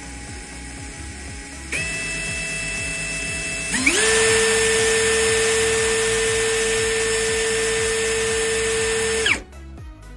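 Yupai D10A cordless drill motor running with no load while its variable-speed trigger is squeezed further in steps: a low whine, a step up about two seconds in, then a rise to full speed just under four seconds in. It holds steady at full speed and cuts off about nine seconds in, showing how the speed follows the trigger.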